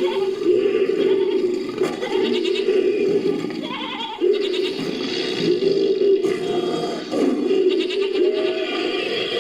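Designed creature calls mixed from goat and sheep bleats layered with animal roars: long, wavering, bleating growls in about four calls, with short breaks between them.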